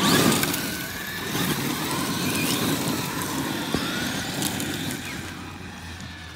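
Electric radio-controlled monster trucks driving on loose gravel: a motor whine that rises and falls with the throttle over the crunch of stones under the tyres. It is loudest at the start and fades toward the end as a truck drives off.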